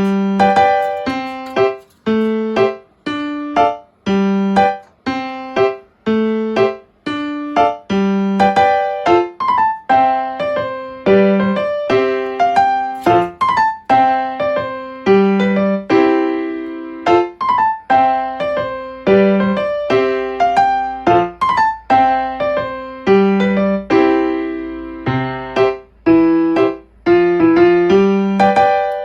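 Background piano music: a gently paced melody of single struck notes and chords, each ringing and fading.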